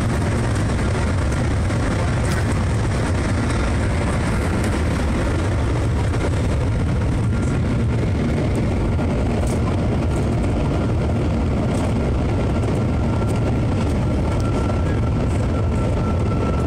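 Steady rushing rumble inside the Shanghai Maglev train's passenger cabin at speed, heaviest in the deep low end, with a faint steady whine above it.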